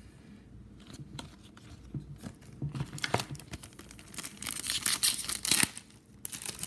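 An Upper Deck MVP hockey card pack wrapper being torn open and crinkled. Light taps and rustles of handled cards come first, and the tearing is loudest about two-thirds of the way through.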